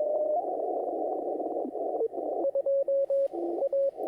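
Shortwave receiver in CW mode: band noise hissing through the narrow filter, then about halfway in Morse code signals start keying, two stations at different pitches, one higher and one lower.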